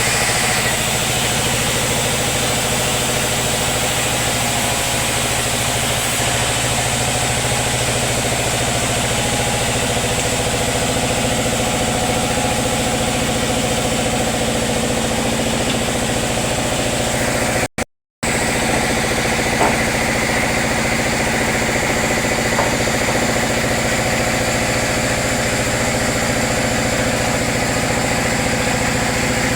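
Sawmill machinery running steadily, a constant engine-like drone with a high hiss. It drops out for a split second about eighteen seconds in.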